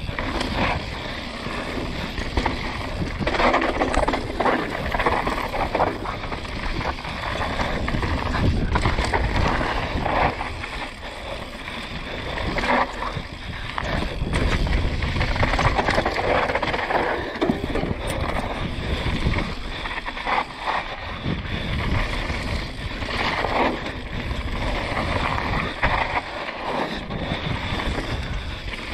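Downhill mountain bike riding fast over a dirt and gravel trail: tyres rolling on the ground and the bike rattling and knocking over bumps, with wind rushing over the microphone.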